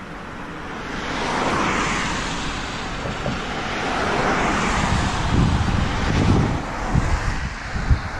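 Wind rushing over the microphone of a vehicle moving at motorway speed, over steady road noise. Gusty low buffeting grows stronger about halfway through.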